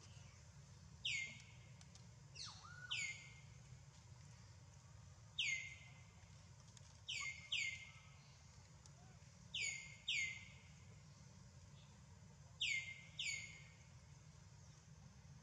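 A bird calling: short, sharp chirps that drop quickly in pitch, mostly in pairs about half a second apart, repeating every two to three seconds.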